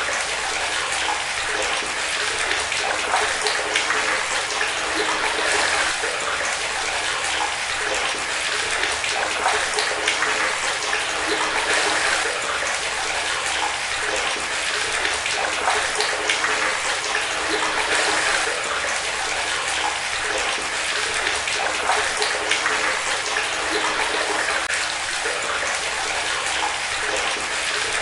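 Running water pouring in a steady stream and splashing, continuous and even.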